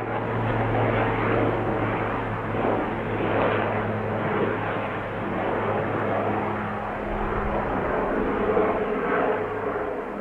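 Airplane engine running steadily: a low hum under a broad rush of engine noise.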